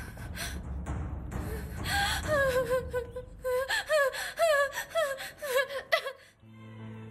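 A young woman sobbing, with gasping breaths and a high, wavering crying voice that breaks up again and again. Soft music comes in near the end.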